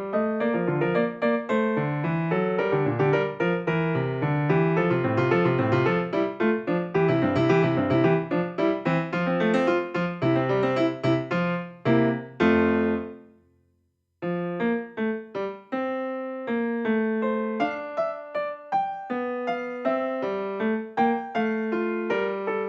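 Background piano music: a busy run of notes that dies away to a brief silence about two-thirds of the way through, then resumes with a sparser melody.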